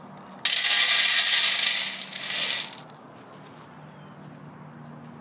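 Dry cat kibble poured from a container onto a metal tray: a sudden loud rattling spill that lasts a little over two seconds, then stops.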